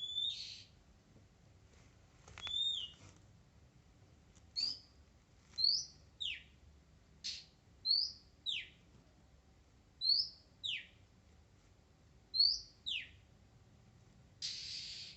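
Oriental magpie-robin calling with short whistled notes, each a quick upward slur followed by a steep falling note, repeated about every one to two seconds. A short harsh, noisy rasp comes near the end.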